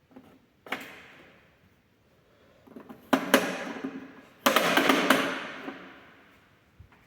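A knock, then two louder clattering knocks about a second and a half apart, the last drawn out for about a second, each dying away.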